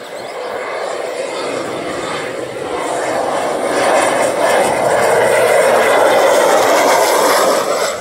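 Single-engine turboprop plane on its landing approach, its engine and propeller noise growing steadily louder as it comes in low overhead, then cutting off abruptly near the end.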